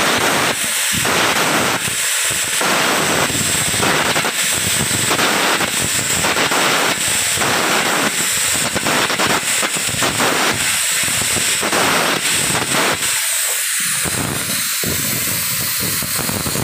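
Electric arc welding on steel plate: a steady, loud crackling sizzle from the arc as a vertical weld is laid.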